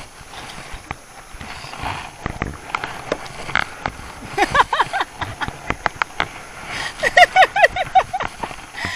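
Kayak paddle splashing and dripping in calm water, with a few light knocks. About halfway in, and again near the end, high-pitched laughter comes in quick repeated 'ha' sounds.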